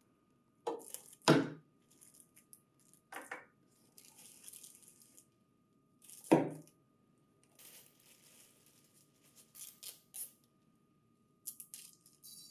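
Unpacking: plastic-bagged metal mounting brackets knocked down onto a table and slid out of a cardboard box, three sharp knocks, with plastic bags crinkling in between. A run of quick crackles near the end as a bag is pulled open.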